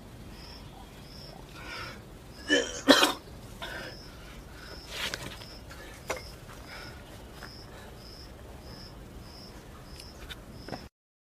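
A man coughs a few times, hardest about two and a half to three seconds in, over a faint high chirp repeating about twice a second. The sound cuts out near the end.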